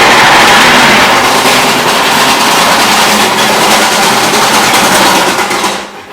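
Exhaust fan running at full speed, a loud steady rushing of air with a low hum under it, dying away quickly near the end.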